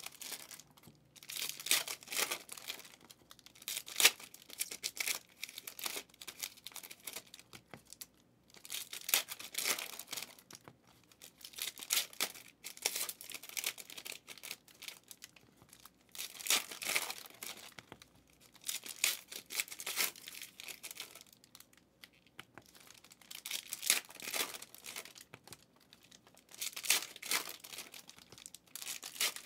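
Football trading cards and their packs being handled and stacked: bursts of paper rustling and crinkling come every two or three seconds, with short quiet gaps between.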